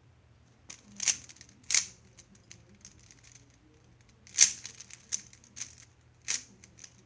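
Plastic clicking and clacking of a MoYu AoLong 3x3 speed cube being turned fast during a solve, in irregular bursts, with louder snaps at about one, two, four and a half and six seconds in.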